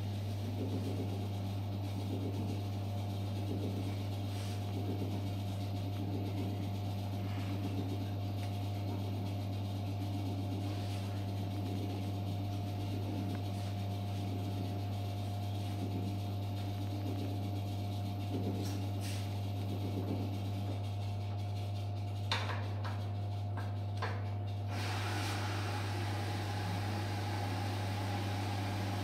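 Girbau MS-623 23 kg commercial washer-extractor running: a steady low motor hum with a fainter steady whine above it and soft, uneven movement from the drum. A few clicks come about 22 to 24 seconds in, and the sound grows brighter and more hissy from about 25 seconds in.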